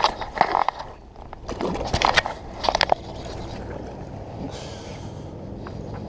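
Several short bursts of splashing and handling noise in the first few seconds as a smallmouth bass is let go into the water over a kayak's side. After that comes a steady low hiss.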